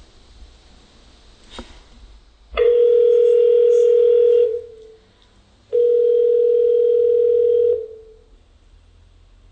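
Telephone ringing tone heard on the line after a number is dialed: two steady tones of about two seconds each, a little over a second apart. A click comes about a second and a half in, before the first tone.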